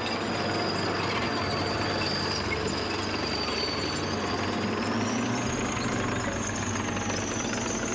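Tracked armoured vehicle running, its engine and tracks making a steady, dense mechanical din. A thin high whine sits above it and climbs a little about five seconds in.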